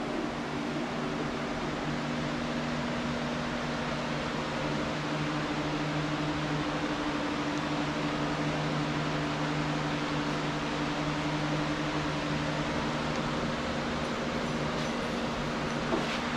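Steady whir of the cooling fans in running moving-head stage lights, an even hiss with a low, multi-tone hum beneath it.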